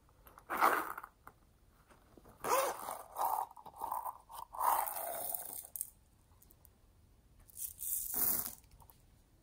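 The zipper of a small silicone coin purse being pulled open in several short scratchy strokes, then plastic pearl beads poured onto slime with a brief rattle about eight seconds in.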